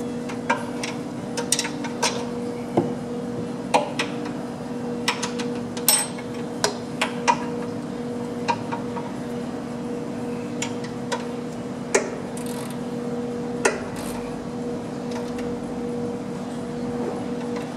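Hand wrenches clinking and clicking on the nuts and metal frame of a hydraulic pump mount as the nuts are tightened: irregular sharp metallic clicks, one or two at a time, over a steady low hum.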